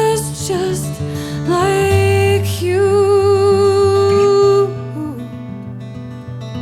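Folk song: a singer holds long notes with vibrato over strummed acoustic guitar. The voice stops about four and a half seconds in and the guitar plays on.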